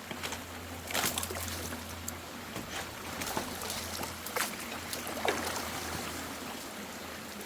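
Water running and trickling at a partly blocked culvert, with several sharp splashes and knocks about a second apart.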